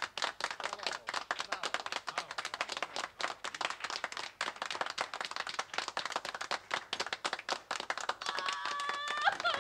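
Audience applauding with many hands clapping. Near the end a woman's wailing cry comes in over the last of the applause.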